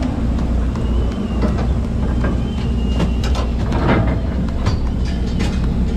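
Fishing boat's engine running with a steady low drone, with irregular clanks and knocks of gear on the deck.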